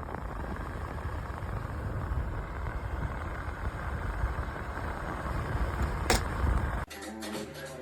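Dehumidifier running, a steady fan whoosh, with a single sharp click about six seconds in. About seven seconds in it cuts to outro music.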